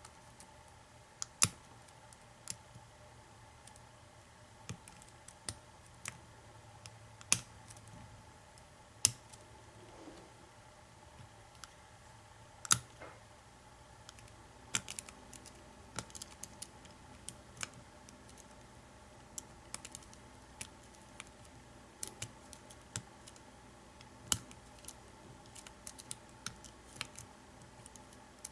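Hook pick and pry-bar tension tool clicking against the pins and keyway of an American 700 series padlock during picking: irregular sharp ticks, some louder than others, with pauses between.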